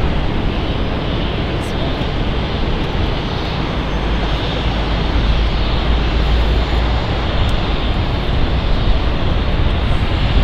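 Airbus A330-200 jet airliner on final approach, its engines a steady rushing drone, mixed with a gusty low rumble of wind on the microphone.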